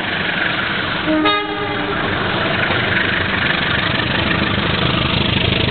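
Train horn sounding one short blast about a second in, over the running noise of the approaching train, which grows louder as it comes past.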